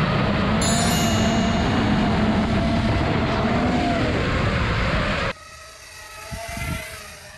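FPV racing quadcopter's brushless motors and propellers whining at high throttle, loud and steady with slight wavers in pitch. About five seconds in it cuts to a much fainter drone sound that swells and fades briefly as the quad passes.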